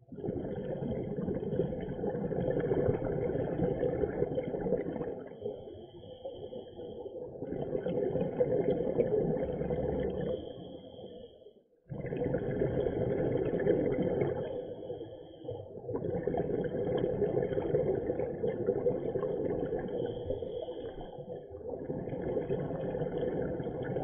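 Scuba diver breathing through a regulator underwater: waves of hiss and bubbling rise and fall every few seconds, with a brief drop-out about halfway.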